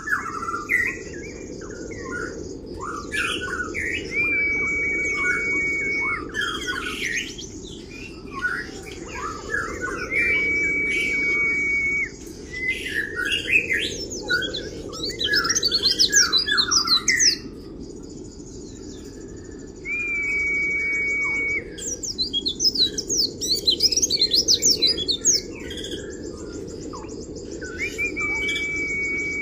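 White-eye (pleci) song: fast, high twittering chatter (the 'kriwik' style) broken by long, level whistled notes held for a second or two, about every six to eight seconds.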